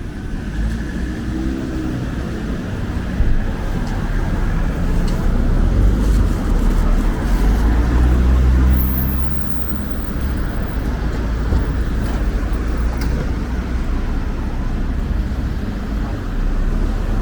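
City street traffic: motor vehicles running past with a steady low rumble, louder as a vehicle passes close about halfway through.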